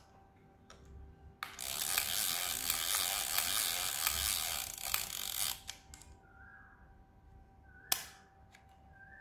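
Yashica Mat 124G twin-lens reflex camera mechanism working in the hand: about four seconds of dense ratcheting and clicking, then a single sharp click about eight seconds in.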